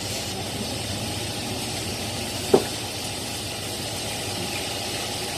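Steady rushing noise from a lit gas stove burner under a covered wok and a wall exhaust fan, with one sharp knock about two and a half seconds in.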